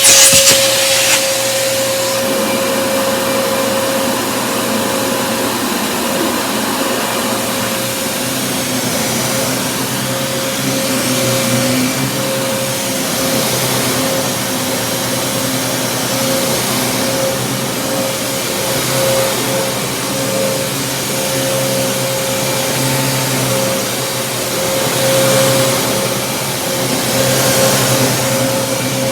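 Kenmore Progressive upright vacuum cleaner running steadily, its motor giving a constant whine over a broad rushing noise, with a few clicks in the first second.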